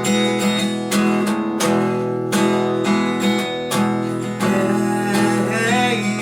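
Guitar strummed in a steady rhythm, playing the chords of the song's introduction.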